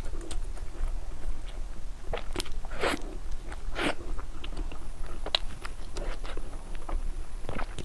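A person chewing and biting food close to the microphone: irregular mouth clicks and short, smacking chewing sounds at an uneven pace.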